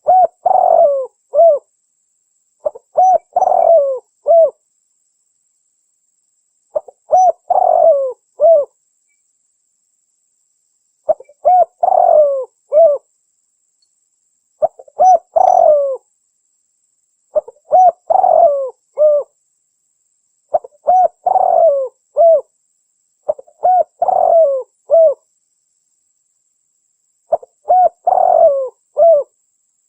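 Spotted dove cooing: a short phrase of three or four falling coo notes, repeated about nine times with pauses of a second or more between phrases.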